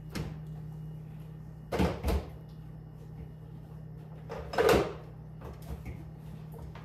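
Knocks and clatter of kitchen items being handled and set down: two short knocks about two seconds in and a louder clatter just before five seconds, over a steady low hum.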